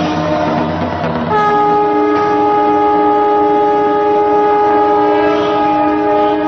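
Several conch shell trumpets blown together, holding one long, steady, loud chord of several tones that comes in strongly about a second in.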